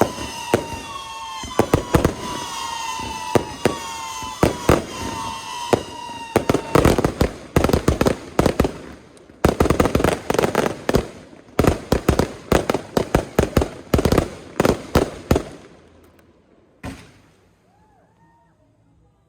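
Aerial fireworks: whistling tones that fall slightly in pitch, punctuated by sharp bangs, for the first several seconds, then a dense barrage of rapid bangs that thins out after about fifteen seconds, with one last bang near the end.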